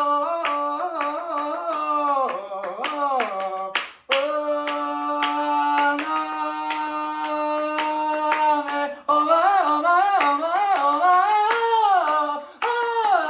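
A tenor singing phrases with sliding, bending pitch and one long held note in the middle, punctuated by sharp hand claps.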